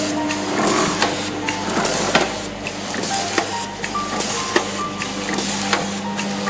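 Automatic triangle-bag packing machine running: a steady hum with its mechanism clicking and knocking at a regular beat, roughly twice a second.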